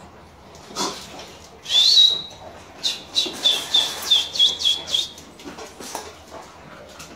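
A thin, high whistle-like call: one longer note rising about two seconds in, then a quick run of about eight short notes at the same pitch. A short knock comes just before one second in.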